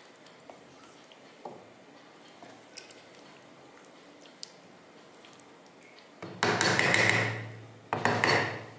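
Faint squelching and light scraping of a spatula stirring thick rice-and-lentil bisi bele bath in a pressure-cooker pot. About six seconds in come two loud noisy bursts, the first about a second and a half long and the second shorter, each with a low steady hum beneath it, from a source that cannot be named.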